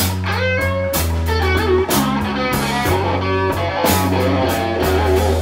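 Slow blues band music: an electric guitar plays a fill with bent notes over bass and drums, with no singing.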